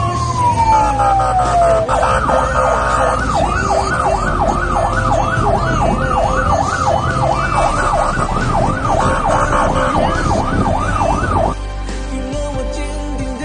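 Emergency-vehicle siren: a long falling wail, then a fast rising-and-falling sweep about two or three times a second that cuts off near the end, over low road rumble.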